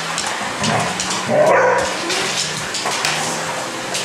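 Canister vacuum cleaner running steadily, with a dog giving a brief whine over it about a second and a half in.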